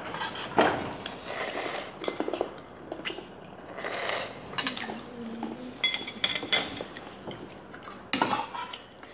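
Chopsticks clinking and scraping against a ceramic bowl as noodles are picked up and slurped, with a few sharp ringing clinks a little past the middle.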